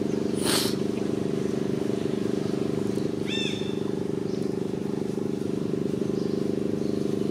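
A steady low engine-like hum runs throughout. A brief rustle comes about half a second in, and a short high-pitched call a little after three seconds.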